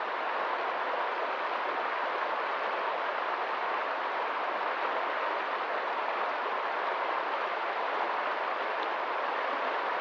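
Shallow, fast-flowing stream rushing over stones: a steady, even rush of water.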